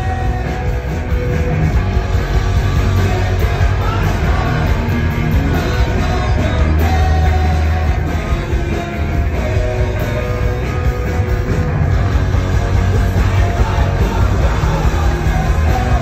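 Rock band playing live: a singer over electric guitars, bass and drums, loud, with a heavy bass end.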